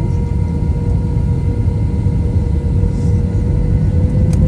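British Airways airliner's jet engines at takeoff power: a loud, steady deep rumble with an engine whine that slowly rises in pitch.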